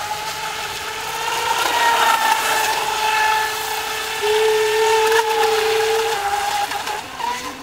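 Brushless electric motor of a radio-controlled speed boat running at speed, a steady high whine that wavers slightly in pitch, with a second, lower whine joining in for a couple of seconds in the middle.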